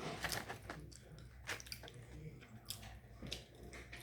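A person chewing food close to the microphone, with wet mouth clicks and a few short crunches scattered through.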